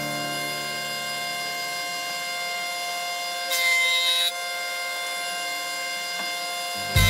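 Background music holding a steady, sustained chord, with a brief brighter swell in the high notes about halfway through.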